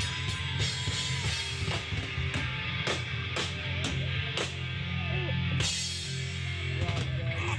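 Loud rock music with a steady drum-kit beat, hits coming a little under twice a second over a heavy bass line.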